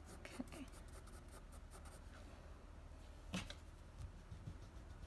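Graphite pencil scratching faintly on sketchbook paper in short strokes, with one soft knock a little over three seconds in.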